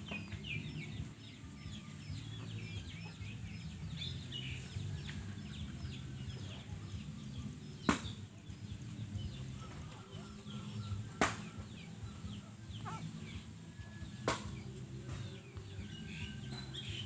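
Chicks peeping: a steady stream of short, high, falling peeps over a low hum, with three sharp clicks a few seconds apart in the middle.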